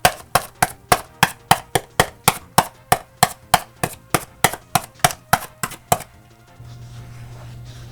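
A rapid, even series of sharp knocks or strikes, about three to four a second, that stops about six seconds in. A low steady hum follows.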